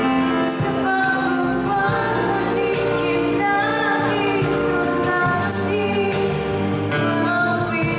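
A woman singing through a microphone over live instrumental accompaniment, with long held notes that waver in pitch.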